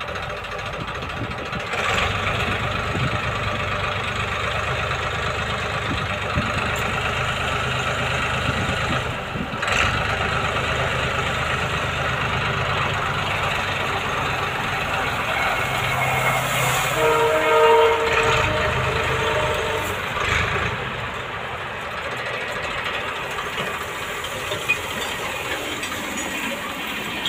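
Massey Ferguson tractor engine running steadily under load while the hydraulic tipper raises a trolley loaded with straw. For a few seconds past the middle, a pitched whining tone rises above the engine noise.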